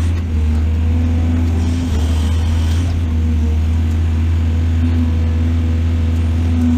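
Heavy diesel engine running steadily at an even speed, a deep drone with no revving up or down.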